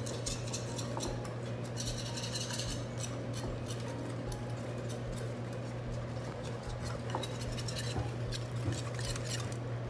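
Wire whisk beating an oil-and-lemon marinade in a stainless steel mixing bowl: a quick run of light metal clicks and scrapes against the bowl, over a steady low hum.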